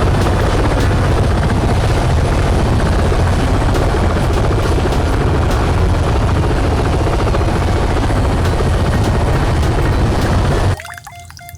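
A loud, steady mechanical whirring drone that starts and stops abruptly, cutting out about a second before the end.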